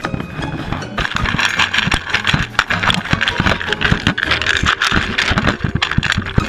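Siberian husky eating from a bowl with an action camera in it: dense, irregular clicking, crunching and rattling right at the lens, growing louder about a second in.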